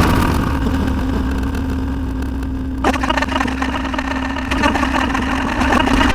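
A loud, steady engine-like rumble with a constant hum, joined by a rougher, noisier layer about three seconds in; it cuts off abruptly at the end.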